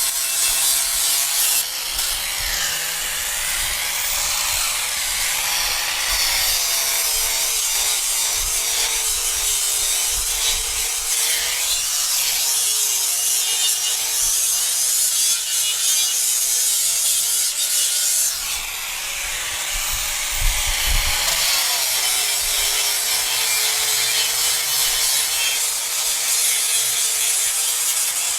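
Handheld electric power tool abrading a surface: a continuous loud abrasive hiss over a motor whine whose pitch sags and recovers several times as the tool is pressed into the work.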